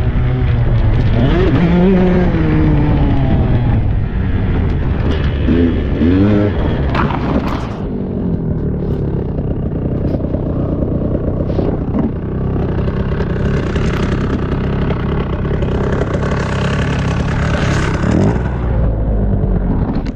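Husqvarna 125 cc dirt bike engine revving as it is ridden, its pitch rising and falling several times in the first seven seconds, then running on more steadily.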